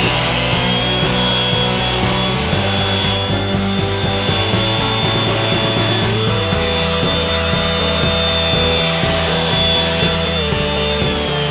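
Electric random orbital sander running on a 20-gauge sheet steel piece: a steady high whine that spins up at the start and begins to wind down near the end. Background music plays underneath.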